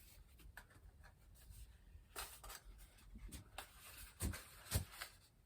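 Foam packing and the model's box being handled: faint rubbing and scraping with scattered small clicks, and two louder knocks about four seconds in.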